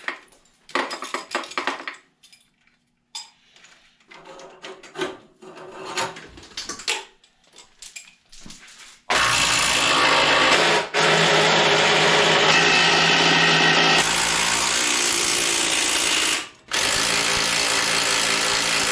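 Clinks and rattles of hand tools and parts for about the first half, then a cordless power tool running loudly in several long, steady runs.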